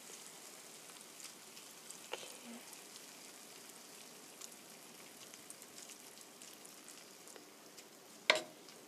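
Faint sizzle from a frying pan of tomatoes, scrambled eggs and slice cheese on leftover heat after the burner is off, with light scrapes and ticks as a wooden spoon stirs through it. A sharp knock near the end.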